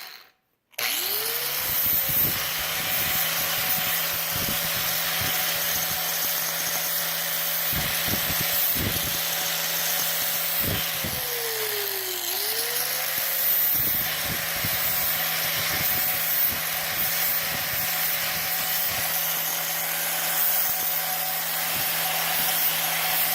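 4.5-inch electric angle grinder with a flap wheel, spinning up and running steadily while grinding a steel part, with rough rubbing noise. About halfway through, its speed briefly sags under load and then picks back up.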